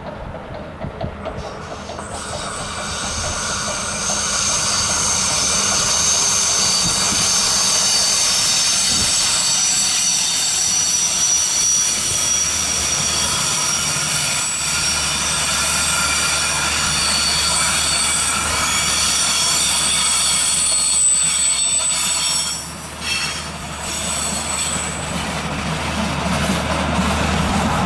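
Rhaetian Railway train hauled by a Ge 4/4 III electric locomotive passing on a curve, its steel wheels squealing with several high, steady tones over the rolling rail noise. The squeal sets in about two seconds in and fades out around twenty-two seconds in, leaving the clatter of the passing coaches.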